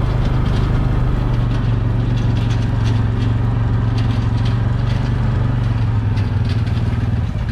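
Arctic Cat TBX 700 utility vehicle's engine running steadily while it drives along a woods trail, a constant low drone.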